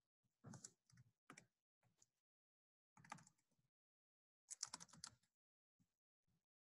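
Faint typing on a computer keyboard, in three short bursts of key clicks.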